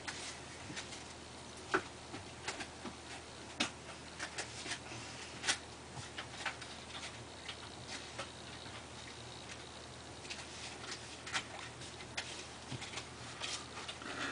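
Faint, irregularly spaced clicks and light taps over a steady background hiss.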